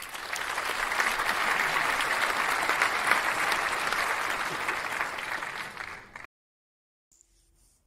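Crowd applauding, a dense patter of many hands clapping that cuts off abruptly about six seconds in.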